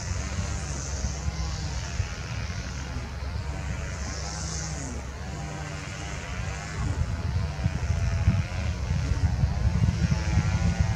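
Twin-engine jet airliner's engines on the runway, heard from a distance: a low rumble with a wavering whine above it, getting louder about seven seconds in.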